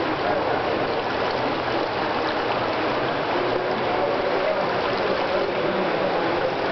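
Swimming-pool ambience: a steady watery wash with faint voices in the background.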